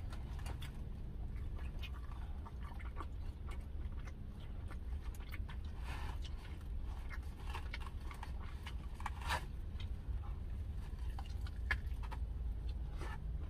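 A person chewing and biting into smoked BBQ chicken wings, with wet mouth sounds and scattered short clicks and smacks, one of the louder ones about nine seconds in. A steady low hum runs underneath.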